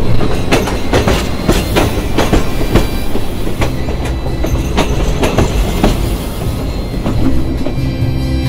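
Narrow-gauge train carriages rolling past, their wheels clicking over the rail joints at an uneven few clicks a second over a low rumble.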